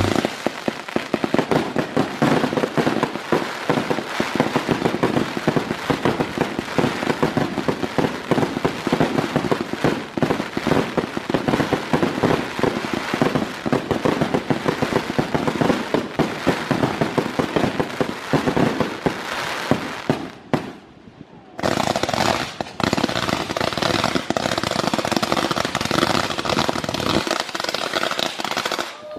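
Aerial fireworks display: a dense, continuous crackle of many small reports every second, with one brief lull about two-thirds of the way through before the crackling resumes.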